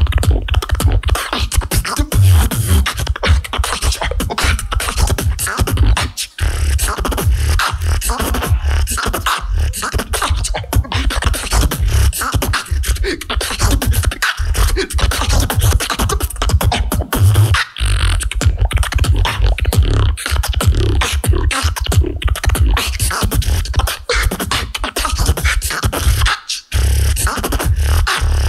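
Solo beatboxing through a PA system: fast, dense vocal percussion with deep amplified bass kicks and sharp snare and hi-hat strokes, with a few brief drop-outs.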